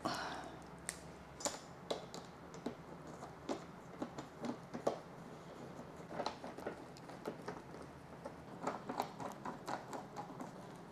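Hand screwdriver turning the windshield mounting screws into a motorcycle fairing: a run of small, irregular clicks and ticks, busiest near the end.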